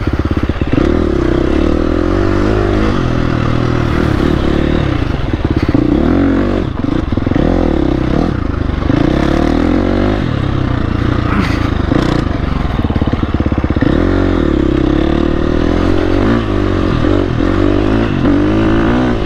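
Dirt bike engine running under load, its pitch rising and falling again and again as the throttle is opened and closed over a rough dirt trail.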